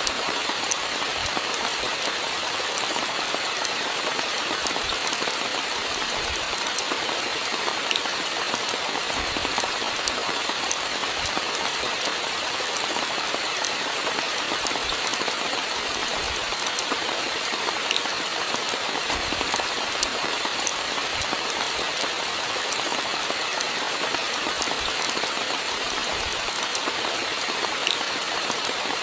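Steady rainfall: a continuous even hiss with many small drop ticks scattered through it, and a few soft low thuds now and then.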